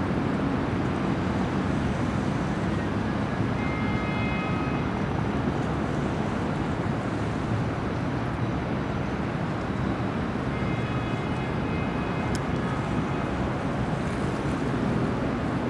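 Steady low rumble of distant engines, the catamaran river ferry's motors mixed with city traffic, with wind on the microphone. A faint high whine comes and goes twice.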